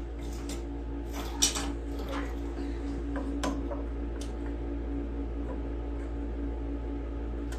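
Metal clinks and clatter as the recoil starter housing of a Honda 5.5 hp engine is handled and set back in place, a few knocks in the first few seconds over a steady low hum.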